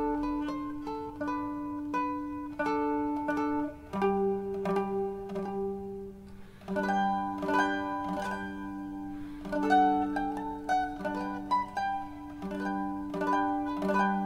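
Mandolin playing a solo melody in plucked notes, with a short break between phrases about six seconds in.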